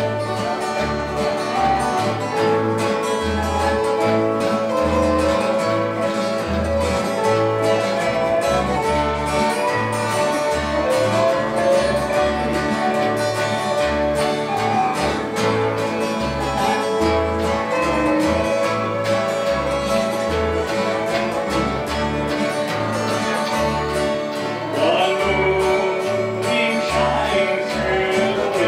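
Live acoustic country string band playing: strummed acoustic guitars and a resonator guitar over an upright bass picking out a steady bass line, in an easy bluegrass-style rhythm.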